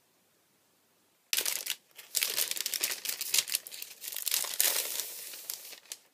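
Thin plastic shopping bag crinkling loudly as a hand rummages in it and draws a magazine out, starting after about a second of quiet and running for about five seconds.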